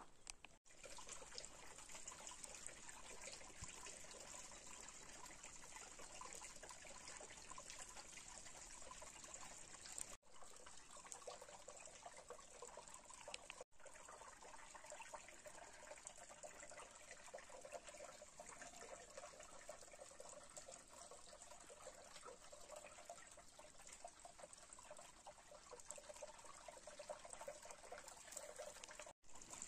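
Faint steady trickle of a small stream of muddy water running over rocks. The sound drops out briefly a few times.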